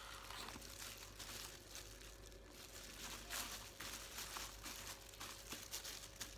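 Faint, irregular crinkling and rustling of thin disposable plastic gloves as gloved hands pick up and mix chopped salad ingredients.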